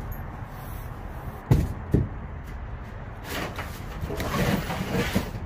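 Items being handled and shifted inside a storage unit: two sharp knocks about half a second apart, then a few seconds of rustling and scraping.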